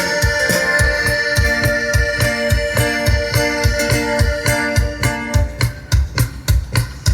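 A live band playing an instrumental passage: held electronic keyboard chords over a steady bass and drum beat. About five and a half seconds in, the keyboard chords drop away, leaving the bass and drums.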